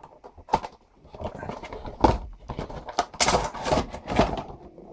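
Cardboard toy box being handled while its clear plastic insert tray slides out: scraping and rustling of cardboard and plastic with scattered clicks, a sharp knock about two seconds in and a burst of rustling near the end.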